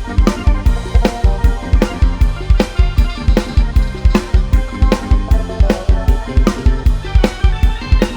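Thai Isan procession-style (lai hae) dance music: a drum kit keeps a steady bass-drum beat, about two and a half strokes a second, with snare hits, under a sustained melodic line.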